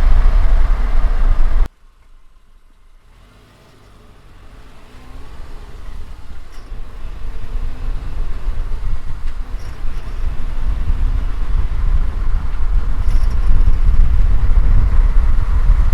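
Subaru driving, a low engine and road rumble. It cuts off abruptly a couple of seconds in, then builds back up steadily over several seconds as the car gets going again.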